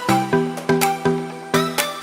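Background music: an electronic track with a steady beat of about three strokes a second over sustained synth chords.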